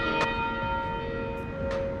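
A bell ringing on after a strike, many overtones held together and slowly fading.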